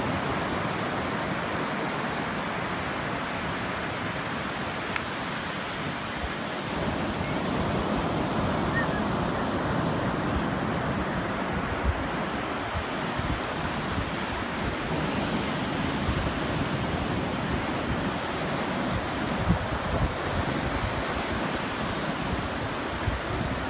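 Ocean surf breaking and washing up on a sandy beach in a steady wash of noise. From about halfway on, wind buffets the microphone with low bumps.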